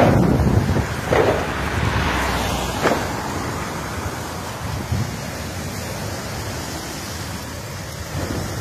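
Wind buffeting the phone's microphone over a steady rushing noise, heaviest at the start and easing off, with a few short sharp pops about one, three and five seconds in.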